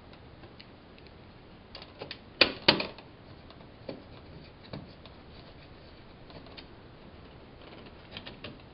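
Scattered small clicks and taps as hands handle the wires at the terminal block of an old Honeywell thermostat's plastic wall base, with two sharper clicks about two and a half seconds in.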